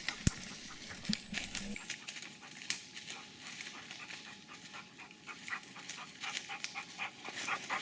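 A German shorthaired pointer panting, with scattered crackles of twigs and undergrowth and one sharp snap about a third of a second in.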